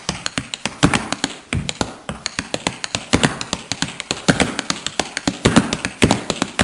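Rapid, irregular light taps and clicks, several a second, of small hard objects.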